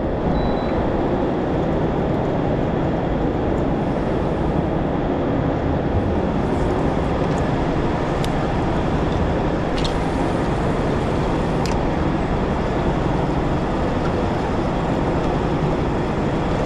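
Boat motor running steadily under way, a dense, even rushing noise with a faint hum.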